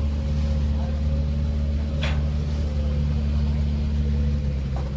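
An engine running steadily with a low hum. A single sharp click comes about two seconds in, and the hum shifts slightly near the end.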